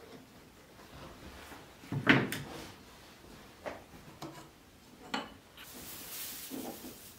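Light wooden knocks and clacks of pine slat pieces being set down and moved on a plywood workbench, the loudest about two seconds in, with a few softer ones after. Near the end, crinkling of a plastic sheet being spread out.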